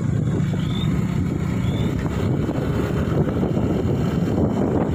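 Wind rushing over the microphone of a moving motorbike, mixed with steady engine and road noise. A few faint, short, high rising chirps come in the first two seconds.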